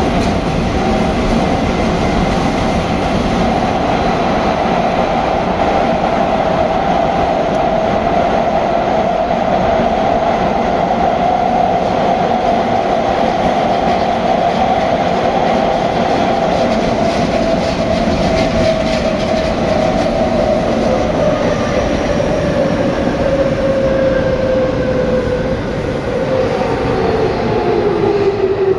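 Tobu 9050 series electric train running at steady speed, with a steady motor-and-gear hum over wheel and rail noise. Over the last several seconds the hum falls in pitch as the train slows down.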